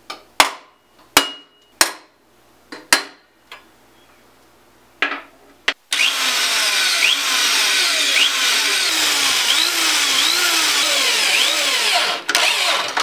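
A hammer taps a centre punch four times, sharply, on a metal rail. Then a handheld electric drill bores into the rail for about six seconds, with a wavering squeal as the bit bites, and stops near the end.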